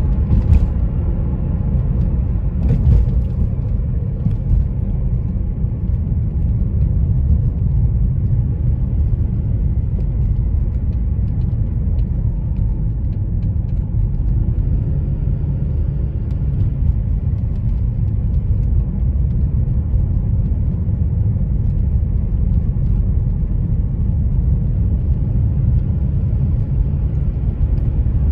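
Car driving: a steady low rumble of road and engine noise with faint engine tones, and two light knocks about half a second and three seconds in.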